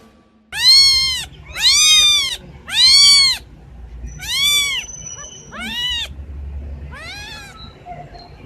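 Domestic cat meowing six times, each call rising then falling in pitch. The first three meows are the loudest, and the later ones grow fainter.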